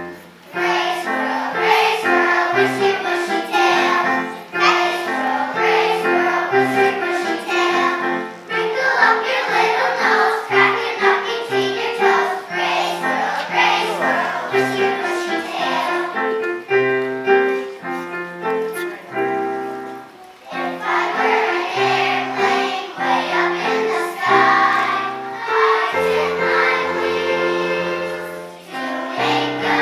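Children's choir singing a song in unison, with keyboard accompaniment and short breaks between phrases.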